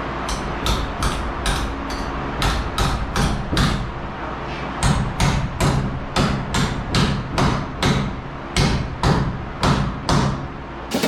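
A hammer striking repeatedly, about two to three blows a second, with a couple of short pauses.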